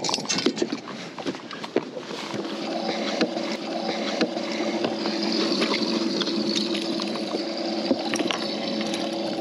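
Handling knocks and clicks, then, from about two seconds in, the steady hum of a bass boat's livewell pump with water splashing into the livewell.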